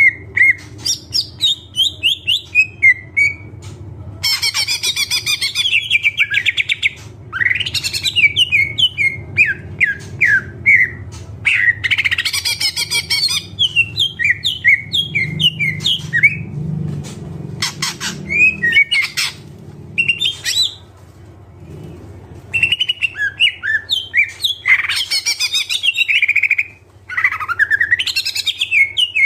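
A green leafbird (cucak ijo) singing vigorously: a fast, varied run of chirps, whistled sweeps and buzzy rattling trills, broken by a brief pause about two-thirds of the way through. This is the full, mimicry-filled song that Indonesian keepers call gacor full isian.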